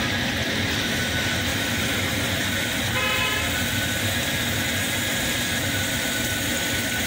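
Hose water rushing through a clogged catalytic converter and splashing onto a concrete floor, flushing out carbon as foam. A vehicle horn toots briefly about three seconds in.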